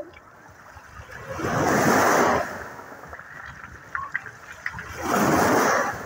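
Small waves washing up a pebble beach, two surges about three and a half seconds apart, each swelling and falling away over about a second, with faint clicks in between.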